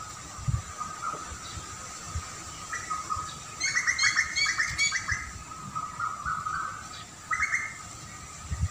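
Small birds chirping: a quick run of chirps about three and a half seconds in, and a shorter burst near the end.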